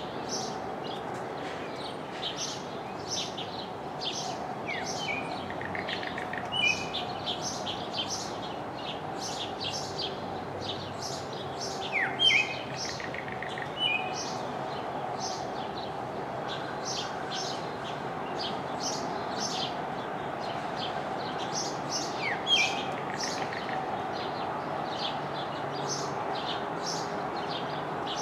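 Blue mockingbird singing: a few loud phrases several seconds apart, each a falling whistle followed by a pair of clear notes and a short rough trill. Quick high chirps run on continuously behind it.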